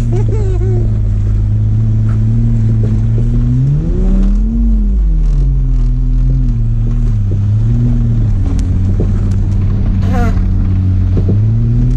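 Holden VS Commodore engine running hard on dirt, holding steady revs. It revs up and back down about four seconds in, then settles slightly lower.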